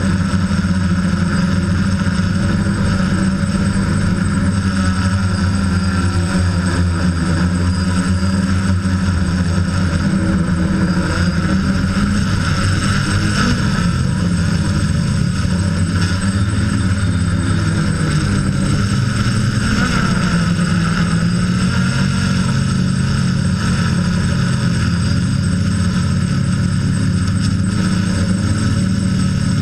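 DJI F550 hexacopter's brushless motors and propellers droning steadily in flight, heard from the camera mounted on the airframe. The pitch of the hum wavers slightly as the motor speeds shift.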